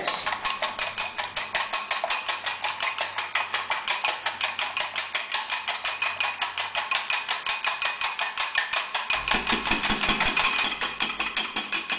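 Egg whites being beaten by hand with a whisk in a mixing bowl, the whisk clicking against the bowl in a fast, even rhythm of about six strokes a second, whipping the whites toward stiff peaks.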